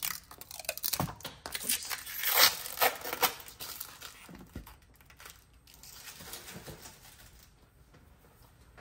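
Blue protective plastic film being peeled off a steel nail stamping plate, crackling and tearing with many sharp clicks. It is loudest about two and a half seconds in, then dies down to soft rustling.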